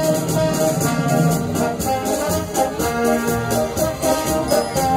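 Live orchestra playing, with brass to the fore and held chords that change every second or so.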